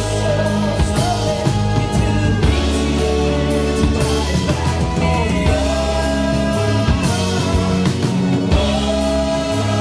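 Alternative rock band playing live: electric guitars, bass, keyboards and drum kit, with a lead vocal sung over them.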